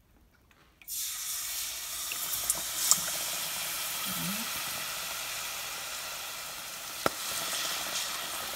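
Battered chicken piece dropped into hot oil: a sudden loud sizzle about a second in that carries on as a steady deep-frying hiss. A sharp click sounds about seven seconds in.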